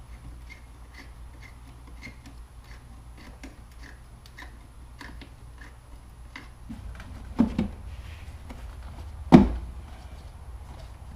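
Plastic parts of a factory air-intake box being handled and fitted with a paper air filter: two sharp knocks, the first a quick double about seven and a half seconds in, the second louder about two seconds later. Faint steady ticking about twice a second runs underneath.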